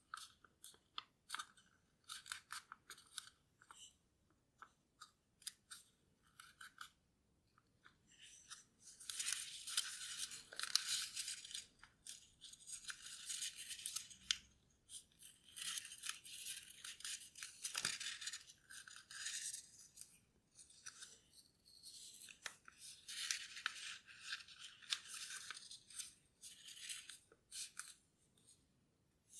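A sheet of origami paper, already folded into a model, rustling and crinkling in the hands as it is folded, with fingers rubbing along the folds to press the creases flat. It starts as short crinkles, then from about nine seconds in there are longer stretches of scratchy rubbing.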